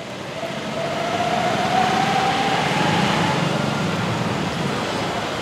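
Bread-crumbed fish pakoras deep-frying in a kadhai of hot mustard oil: a steady sizzling hiss that swells over the first couple of seconds. A faint high tone rises slowly in the background during the first half.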